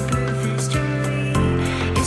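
Background pop song with a steady beat and sustained bass, no singing in this stretch.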